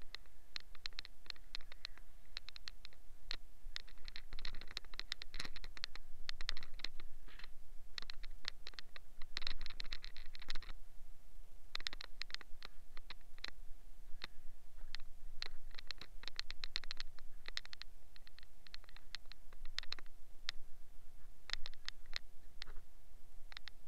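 Brush scrubbing a foam-covered steel wheel rim and tyre, in bursts of rapid scratchy strokes that thin out near the end.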